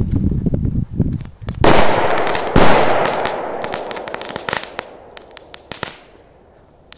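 A bundle of firecrackers going off. Running footsteps for the first second and a half, then a sudden dense string of rapid bangs with the loudest bang about a second later. The bangs then thin out to scattered cracks that stop about six seconds in.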